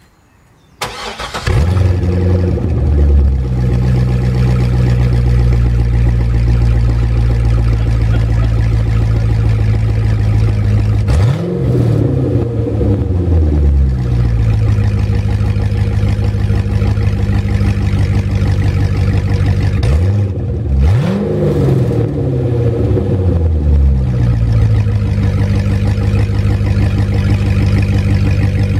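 Chevrolet Corvette C6's 6.0-litre LS2 V8, running with no X-pipe and no rear mufflers, starts about a second in and settles to a loud idle. It is revved briefly twice, once near the middle and again about two thirds of the way through, and falls back to idle each time.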